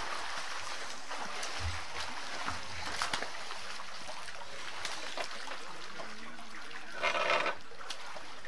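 Swimming-pool water splashing and lapping as swimmers move about, over a steady hiss, with a brief louder burst about seven seconds in.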